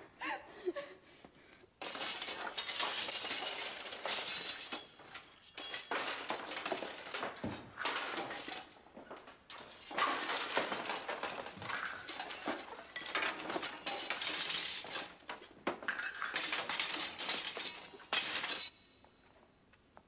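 A heap of old metal weapons and gear being thrown about and smashed, a dense clattering and crashing of metal in several long runs with short breaks, stopping suddenly near the end.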